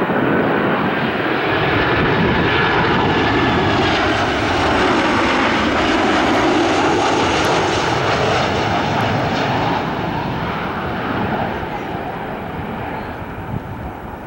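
Boeing 737-900ER airliner's CFM56-7B turbofan engines on final approach passing low overhead: a loud jet rumble with a whine that drops in pitch as it goes by, fading as the plane flies away in the last few seconds.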